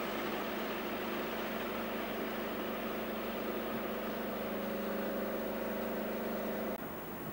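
WestRail diesel locomotive engine running with a steady, even drone. It cuts off suddenly near the end.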